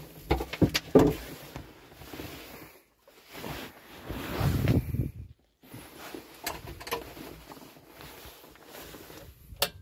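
Scattered clicks, knocks and rustles of handling inside a tractor cab, with a longer rustling noise about four seconds in.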